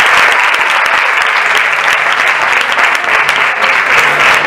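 Theatre audience applauding, a dense and steady clatter of many hands clapping at once.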